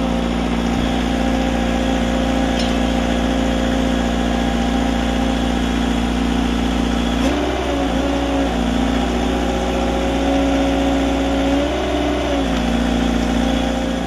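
Engine of a hydraulic drill rig running steadily while drilling a borehole, its pitch wavering briefly about seven seconds in and again around twelve seconds.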